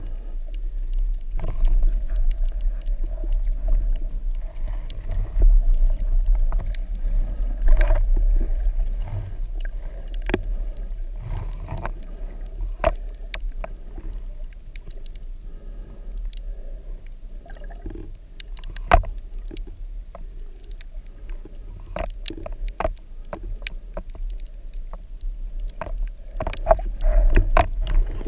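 Underwater water movement heard through a GoPro Hero4's sealed waterproof housing: a continuous muffled low rumble with many scattered sharp clicks and ticks. It is louder in the first third and again near the end.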